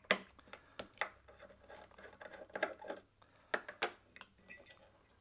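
Scattered light clicks and taps of small metal parts: a Torx T8 screwdriver working the head-assembly screw of an opened hard disk, then being set down, and the head arm being handled.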